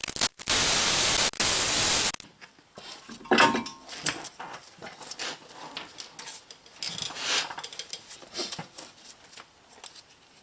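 A power tool running in a loud burst with a brief break, as the brake caliper bracket bolts are loosened, followed by scattered metal clinks and scraping as the parts are handled.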